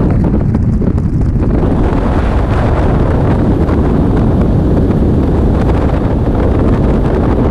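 Freefall wind rushing over the camera's microphone: a steady, loud buffeting noise, heaviest in the low end.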